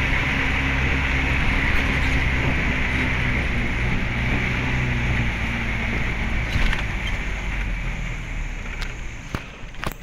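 Vehicle engine running with a steady hiss of wind and road noise, heard from inside the vehicle as it drives a rough dirt mountain track. The noise eases off over the last few seconds, and a few sharp knocks come near the end.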